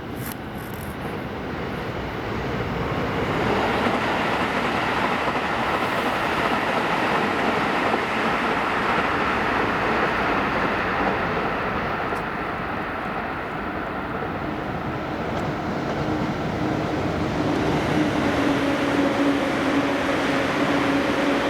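Electric commuter train running past on the rails. Its rolling noise builds about three seconds in and holds steady, and a steady low tone joins near the end.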